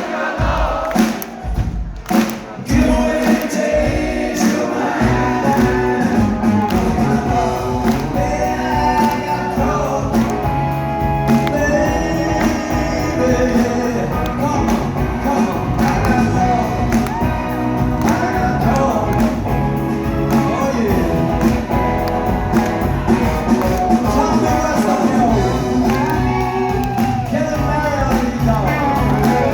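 Live rock band playing with a singer, in a large hall; crowd noise and cheering fade into the music in the first couple of seconds.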